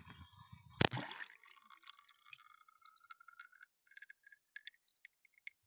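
A CanFish FishingCamX underwater camera on a cast bait rig, heard through its own microphone: a sharp click at the start, then a louder smack with a brief wash as it hits the water about a second in. After that come faint scattered clicks and ticks as it sinks, with a faint rising whine in the first couple of seconds of the sinking.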